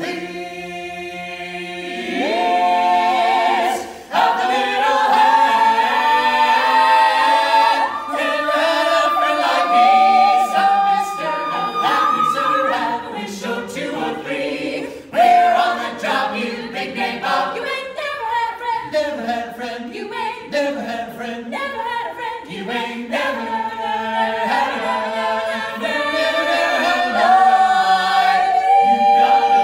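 Mixed a cappella choir of seven voices, women and men, singing in close harmony without instruments, with a brief break about four seconds in.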